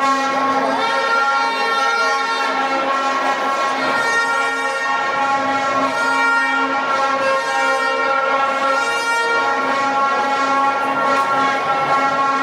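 Vuvuzelas blown in one unbroken drone, a single held pitch with many overtones, over crowd noise.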